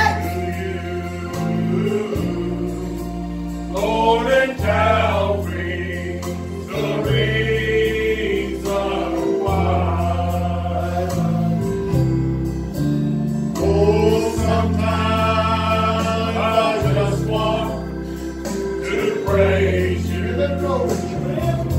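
Gospel song: a group of voices singing over held low bass notes that change every second or two.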